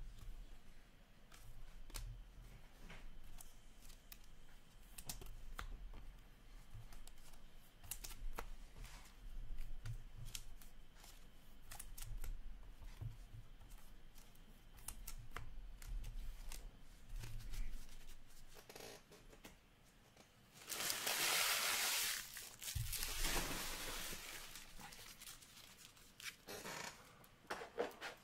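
Hockey trading cards and foil pack wrappers handled on a table: scattered light clicks and taps of cards, then about twenty seconds in a loud tearing and crinkling of wrapper packaging for a few seconds.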